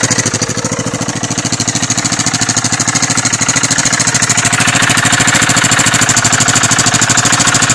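KTM 690 SM's single-cylinder four-stroke engine idling steadily, with an even, rapid exhaust pulse. It grows a little louder in the second half.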